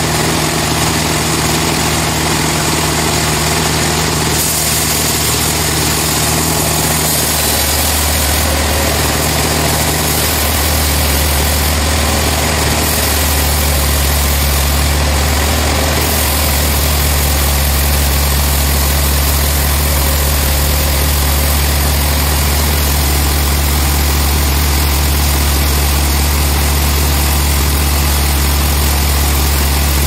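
Band sawmill machinery running steadily without cutting, a loud, even motor hum; the low part of the hum grows stronger about eight seconds in.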